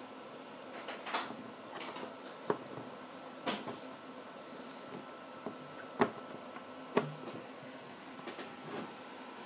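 Handling noise from a homemade air-coil electric motor in a wooden frame: scattered clicks and knocks as fingers adjust the copper coils, with a few sharper knocks, the loudest about six seconds in.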